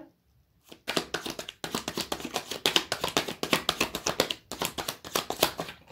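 A deck of tarot cards being shuffled by hand: rapid, dense flicking and clicking of cards. It starts about a second in and comes in three runs with two short breaks.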